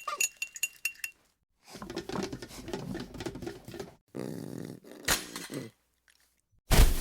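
Light clinking of dishes and cutlery, then a dog vocalising with a wavering pitch, followed by a sharp knock and a loud burst of noise near the end.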